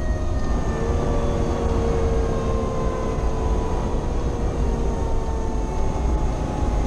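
Fire engine's Federal Q mechanical siren winding down in a slow, falling whine over the steady rumble of the truck's engine and tyres, heard inside the cab.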